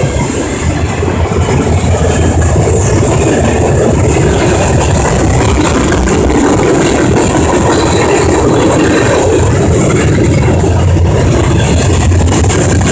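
Diesel freight train passing close by: a loud, steady, unbroken noise of engines and rolling equipment, heavy in the low end.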